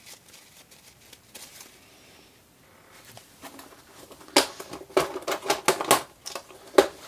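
Faint rustling of a tissue, then from about four seconds in a quick run of sharp clicks and knocks from small hard objects being handled on a workbench.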